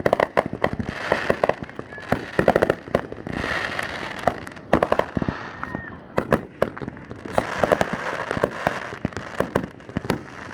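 Fireworks going off in quick succession: many sharp bangs and pops with crackling between them.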